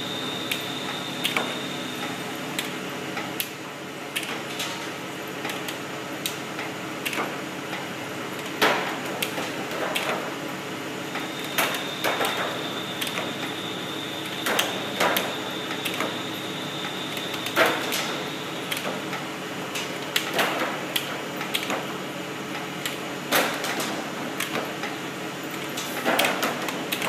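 Automatic container dispenser and belt conveyor running with a steady machine hum and a thin high whine that comes and goes. Sharp clacks come every few seconds as clear plastic tubs drop from the stack onto the belt.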